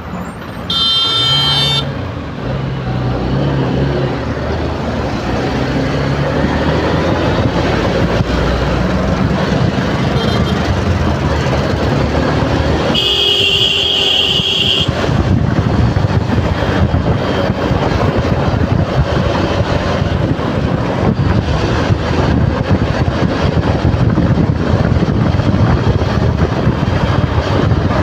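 Motorcycle riding in highway traffic: steady engine and wind noise that grows louder as speed picks up. A vehicle horn honks briefly about a second in, and a longer horn blast sounds about halfway through.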